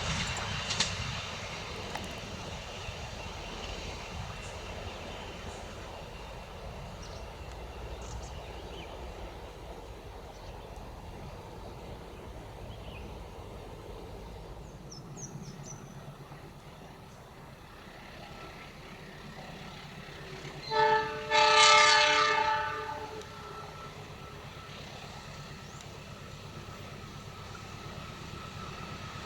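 Diesel locomotive approaching, its low engine rumble building from about halfway. About two-thirds in, it sounds its multi-tone horn: a short blast, then a longer one.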